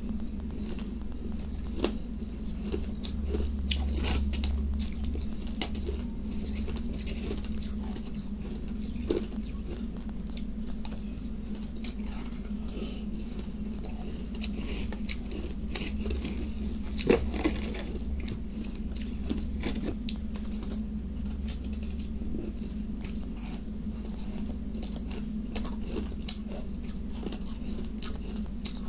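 Close-up crunching and chewing of crushed ice, with many irregular short crunches and one sharper, louder snap a little past halfway, over a steady low hum.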